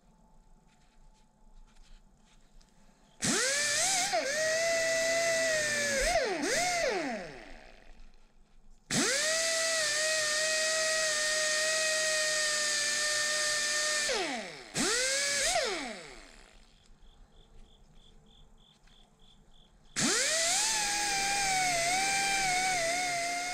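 Pneumatic right-angle die grinder with a small wire cup brush, wire-brushing a steel ratchet part. It runs three times, plus a brief blip in between. Each time it spins up quickly to a steady high whine with hissing air and brush noise, then winds down with a falling pitch.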